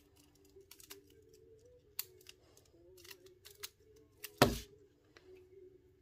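Plastic clicks of a fidget spinner Rubik's cube's layers being turned fast during a speedsolve, then about four and a half seconds in a loud slap as the cube is set down and hands hit the Speed Stacks timer pads to stop it. A faint steady hum runs underneath.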